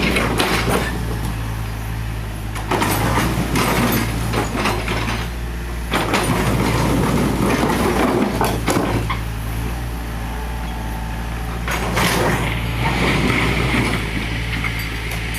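Doosan 55W excavator's diesel engine running steadily, with three stretches of crunching and clattering as broken bricks and rubble are worked and shifted.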